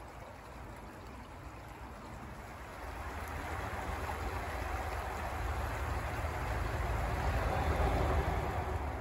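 Forest stream running over stones: a soft, steady rush of water that grows louder from about three seconds in, where the water tumbles over a small rapid.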